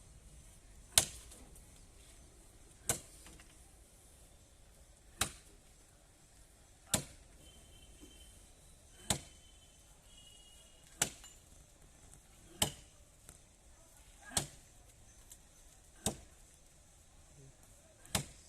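Wood of a mango tree being chopped by hand: about ten sharp single strikes, roughly one every two seconds.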